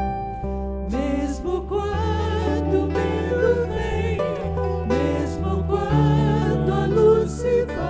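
Christian worship song: a sung vocal line comes in about a second in over a steady instrumental backing with a sustained bass.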